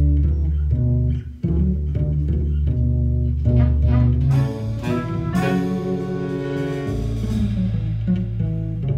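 Small jazz band playing: upright bass, vibraphone and drums, with a trumpet coming in about five seconds in.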